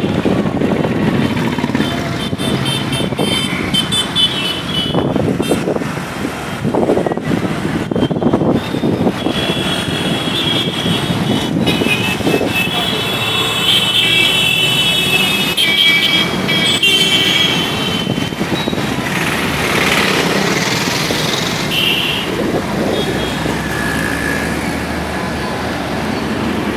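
City street traffic: engines of buses, cars and motorcycles running past, with vehicle horns honking in long stretches near the start and again through the middle.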